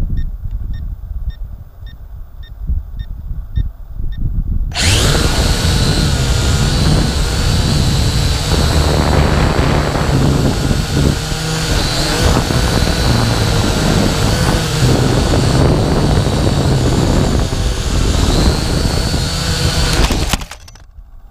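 FPV quadcopter heard from its own onboard camera: at first low wind rumble with faint short beeps about twice a second, then about five seconds in the motors spin up and the propellers run loud with a steady whine for the low flight over the field. Near the end the propeller noise stops suddenly as the drone crashes into the grass.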